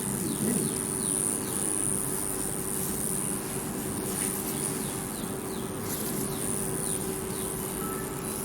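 A 40K ultrasonic cavitation handle running, with a steady hum and a steady high-pitched whine. Short falling chirps repeat about twice a second.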